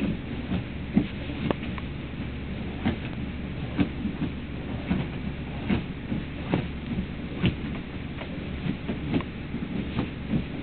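A Doberman puppy's paws scratching and digging frantically at couch upholstery. The scrapes and knocks come irregularly, about one or two a second.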